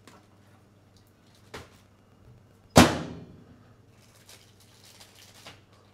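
Microwave oven door being shut: one loud clunk of the door and latch about three seconds in, ringing briefly. A softer knock about a second earlier comes from the plastic food tray being set down on the wooden bench.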